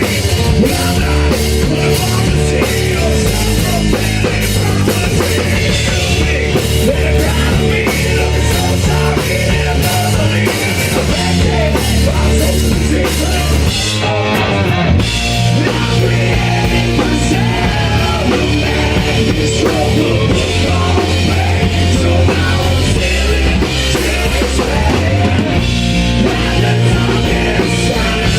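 Loud hard rock music with a driving drum kit and no singing: an instrumental stretch of the song, with a brief break in the full band about halfway through.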